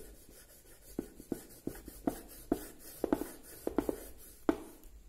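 A folded piece of paper rubbed over oil pastel on drawing paper, blending black and green colours, in short back-and-forth scraping strokes about two a second.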